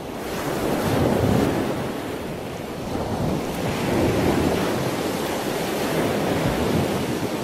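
Ocean surf: a steady rush of waves that swells about a second in and again around four seconds.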